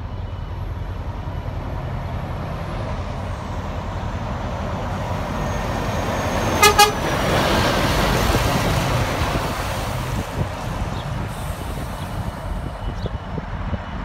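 Scania R490 tank truck's 13-litre inline-six diesel running as it drives toward and past, growing louder to a peak and then fading as it moves away. Just before it passes, its horn gives two quick toots.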